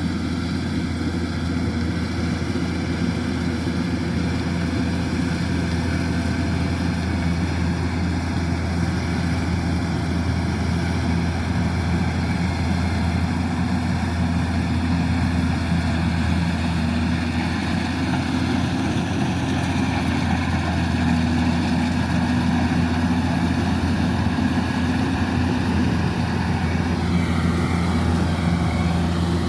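Kubota DC-105X combine harvester's diesel engine running steadily with a continuous low drone, with machinery noise layered over it.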